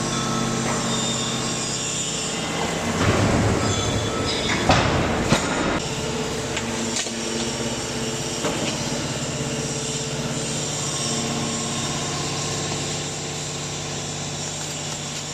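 160-ton hydraulic metal baler running, its hydraulic pump and 44 kW motor giving a steady hum. About three seconds in there is a louder stretch of scrap metal being crushed and clanking, with two sharp bangs a little after the middle.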